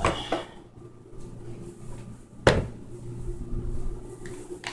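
A kitchen cabinet door knocks shut once, sharply, about halfway through. There are a few lighter clicks near the start and end, over a faint steady hum.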